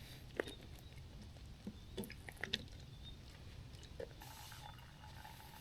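Small gear being handled: faint, scattered light clicks and taps, a few a second at most.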